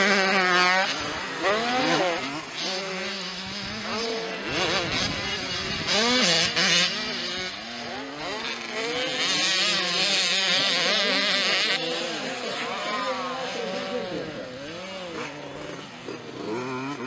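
Motocross dirt bike engines racing, revving up and down over and over as the riders work the throttle. At times two engines overlap with different pitches.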